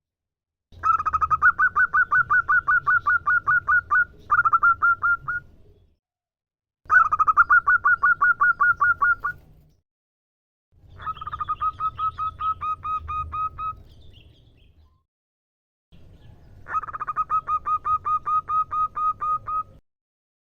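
Female zebra dove calling: four bouts of fast, evenly repeated staccato notes, about seven a second, each bout lasting a few seconds with short pauses between.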